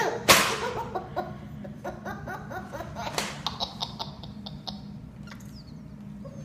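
Baby belly laughing in repeated giggling fits. A short loud rush of sound comes just after the start and again about three seconds in, over a low steady hum.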